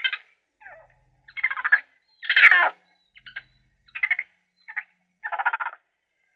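A farm animal calling in a series of about eight short, raspy calls, the loudest about halfway through.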